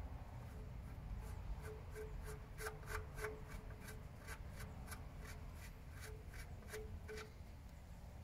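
Threaded metal standoff being screwed by hand into the electric drive unit's housing: a run of short squeaky clicks from the threads turning, about three a second, stopping near the end.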